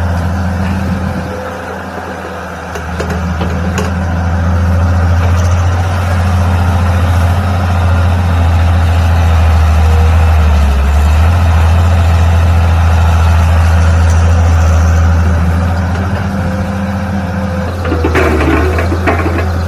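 Mini excavator engine running steadily, with a brief dip in level about two seconds in. A short burst of rattling or clanking comes near the end.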